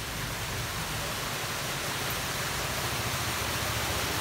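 A car driving slowly through shallow floodwater toward the listener: a steady rushing noise of water and tyres that slowly grows louder as it comes closer.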